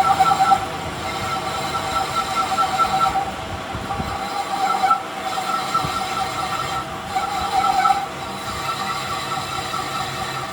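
A metalworking machine working steel on a drive shaft, giving a steady, wavering squeal over a grinding noise, with slight swells in loudness every couple of seconds.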